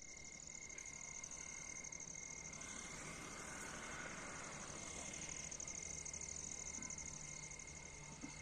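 Faint, steady insect chirping: a rapid, evenly pulsing high trill, with a thin steady tone beneath it.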